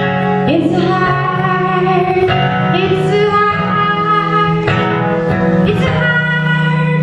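Live acoustic song: a woman singing over a strummed acoustic guitar, with chords struck every second or so.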